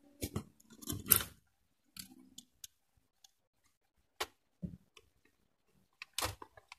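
Clicks, taps and knocks of a circuit board being handled and fitted onto a metal control-panel mounting plate. A dense cluster of knocks comes in the first second and a half, single clicks follow, and another short cluster comes near the end.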